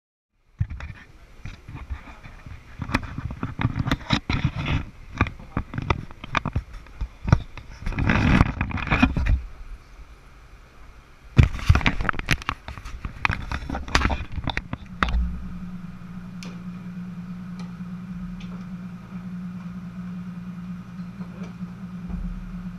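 Handling noise from a carried action camera: irregular knocks, clicks and rubbing on the camera body, loudest in the middle. About fifteen seconds in the camera is set down and the handling stops, leaving a steady low hum in the room.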